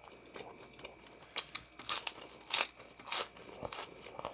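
A person chewing crunchy food, with a string of sharp crunches; the loudest come about two, two and a half and three seconds in.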